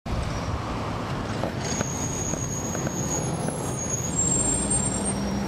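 Cummins ISL9 diesel engine of a 2011 NABI 40-SFW transit bus running, heard from inside the bus as a steady rumble, with a few thin high whines above it.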